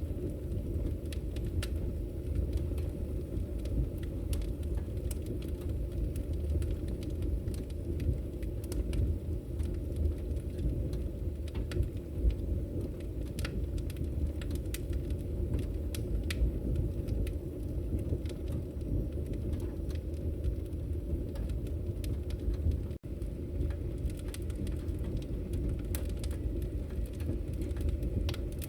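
Wood fire burning: a steady low rumble of flames with many scattered crackles and pops from the firewood. There is a split-second dropout about 23 seconds in.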